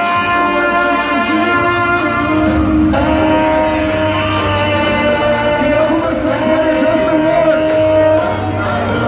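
Loud electronic dance music from a DJ set played through a festival stage's large speaker stacks, with long held melodic notes over a bass line; a new held note comes in about three seconds in.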